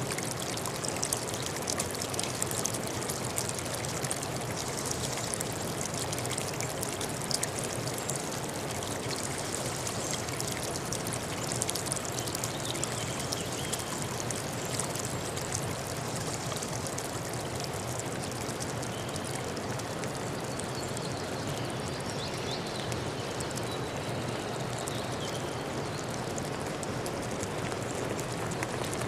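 Running water, a steady even rush with fine splashing.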